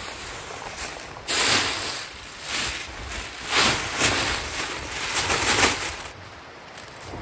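Four bursts of rustling noise, each half a second to a second long, over a quiet outdoor background.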